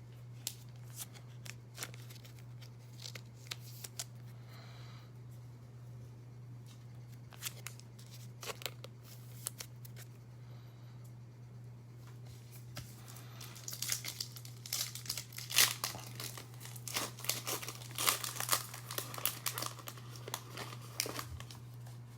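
Trading card pack wrappers being handled and torn open: scattered rustles and clicks at first, then dense tearing and crinkling for the last third or so. A steady low electrical hum runs underneath.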